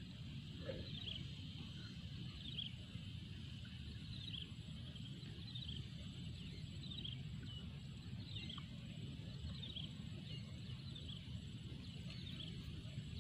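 A bird calling over and over: short high chirps about once a second, over a low steady background rumble.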